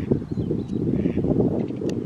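Wind buffeting the microphone, a dense low rumble. Faint short calls sound twice behind it.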